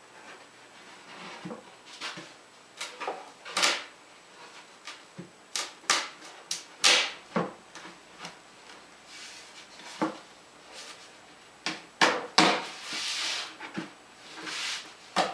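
Irregular wooden knocks and clunks, with a few short scraping sounds, as plywood parts of a cabinet are handled and fitted together during glue-up.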